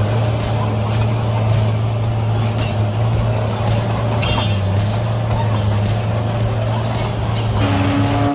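Tracked tractor's engine running steadily, with a strong low drone and a faint high whine over it.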